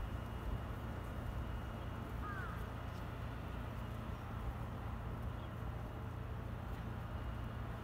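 Steady low rumble of a rail yard, with a single short bird chirp about two seconds in.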